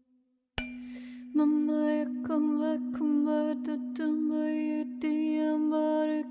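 A tuning fork struck about half a second in, its steady low tone ringing on throughout. From about a second and a half in, a voice hums a wordless chant over it in held notes that step from pitch to pitch.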